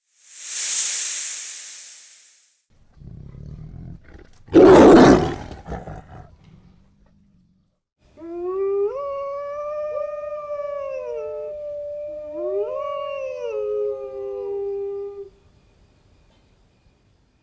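A sequence of animal sound effects: a short hissing burst, then a low growl building into one loud roar, then a long wavering howl lasting about seven seconds.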